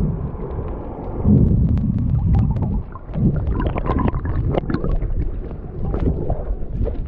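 Water sloshing and gurgling around a snorkeller's camera, in uneven surges. Many small clicks and crackles run through most of it.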